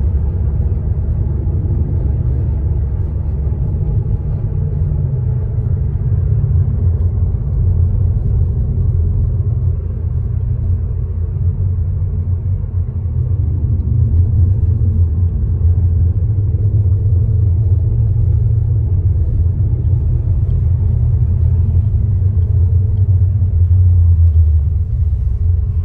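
Low, steady rumble of a car driving, its engine and tyre noise heard from inside the cabin.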